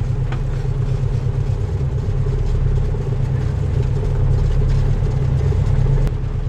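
Piston aircraft engines and propeller running steadily at low power, heard from inside the cabin of a twin-engine light aircraft. The sound drops abruptly about six seconds in.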